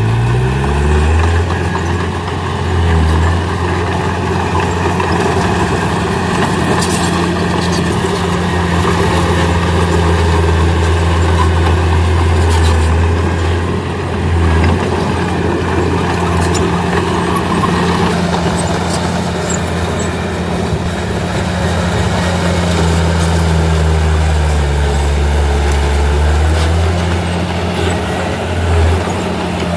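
Heavy diesel engine of earthmoving machinery running steadily under work, its low note shifting up and down in pitch a few times with the load.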